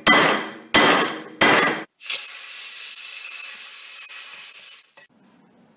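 Three sharp metallic clanks about 0.7 s apart, each ringing out. Then a steady high hiss for about three seconds, which cuts off suddenly: hot metal sizzling as it is quenched in a jar of water.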